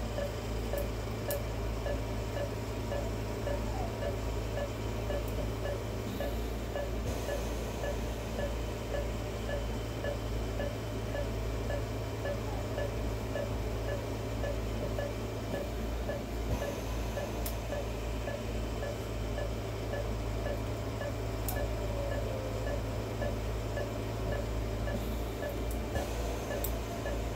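Patient monitor in an operating room beeping steadily, about two short pitched beeps a second, over a low steady hum, with a few faint clicks.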